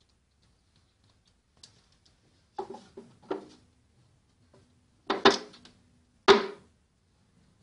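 Hollow knocks and scrabbling on a wooden wastebasket as a cat climbs onto it. There are four thumps; the two in the second half are the loudest.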